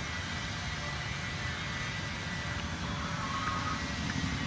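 Steady low rumble of background noise, with faint thin high tones over it.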